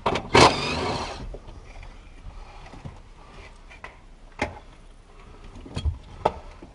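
Work noise from hands and tools under a truck's dashboard: a scraping, rattling burst about a second long near the start, then a few scattered knocks and clicks.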